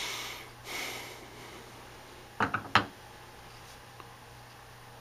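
Metal calibration weights clinking as they are handled on a load cell stack: a quick cluster of sharp knocks about two and a half seconds in, the last the loudest, with a faint tick a little later. Two soft rushing sounds come before them.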